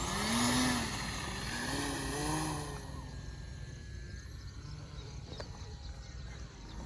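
An electric RC plane's motor whining, its pitch rising and falling as the throttle changes. After about three seconds it fades into a quieter outdoor background with a few faint clicks.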